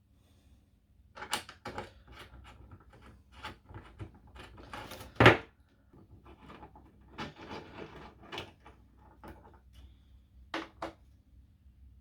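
Scattered clicks and knocks of tools and small metal parts being handled while a screw is taken off a battery's terminal cable, with one sharp, much louder knock about five seconds in.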